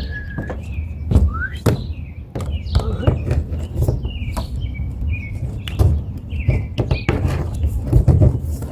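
Small birds chirping repeatedly in short, quick sliding notes, over scattered knocks and thuds and a steady low rumble.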